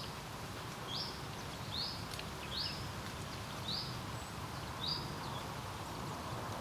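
A songbird repeating one short, high call about once a second, six times, over a steady low rush of wind.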